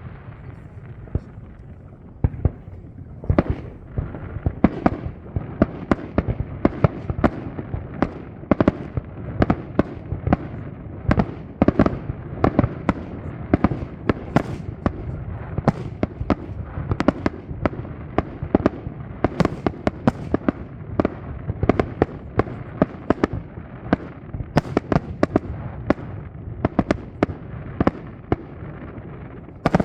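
Fireworks display: aerial shells bursting in quick, irregular succession, several sharp bangs a second, over a steady low rumble. The bangs start about two seconds in.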